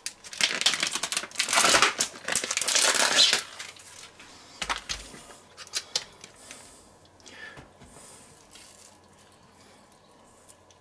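Plastic bacon packaging crinkling loudly as it is torn open over the first few seconds, then quieter rustles and light clicks as slices are handled.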